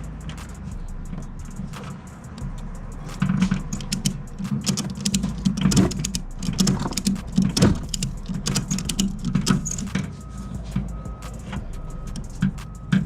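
A motor vehicle running with a steady low rumble, overlaid by frequent short clicks and rattles.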